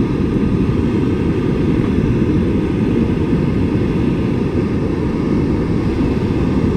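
Wind blowing on the microphone, a steady low rumble with constant fast flutter.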